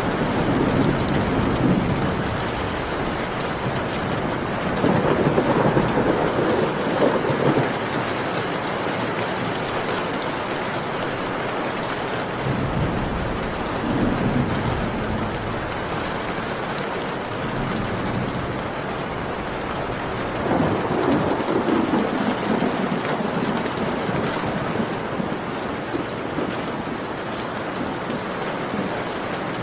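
Steady rain with thunder rumbling low four times, the loudest about five seconds in.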